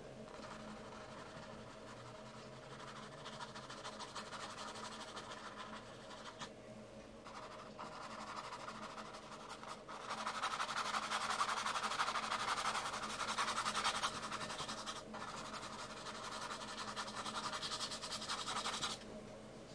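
Paintbrush scrubbing paint onto a canvas in rapid scratchy strokes, with a few brief pauses; loudest about ten to fourteen seconds in, and it stops just before the end.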